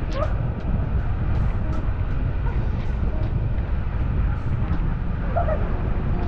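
Waterfall pouring into a plunge pool close by, a steady deep rush of falling water.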